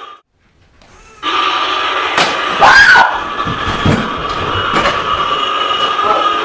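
After about a second of silence, a woman screams in fright and a door bangs as she runs out through it, over a steady background hiss with a held tone.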